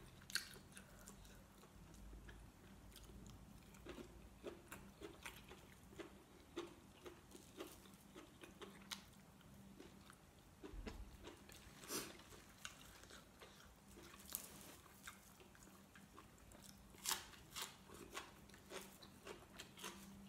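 Faint close-up chewing of soft, sticky food (sticky rice and braised chicken liver eaten by hand), heard as irregular small wet smacks and clicks, a few of them louder, over a faint steady hum.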